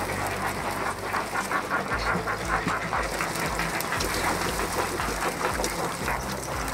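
Water splashing and pouring off a wet fishing net as it is hauled in over the side of a small boat, with a quick run of splashes about a second in. A low steady hum runs underneath.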